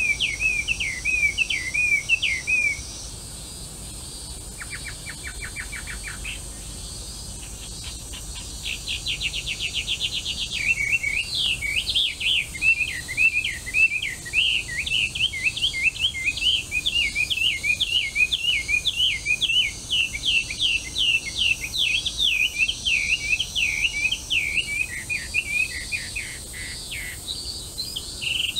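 Melodious laughingthrush (hwamei) singing: long runs of loud, rapidly varied whistled phrases. They are broken a few seconds in by a pause that holds a brief even rattle and a quick trill of rising notes. A faint steady high drone of insects runs underneath.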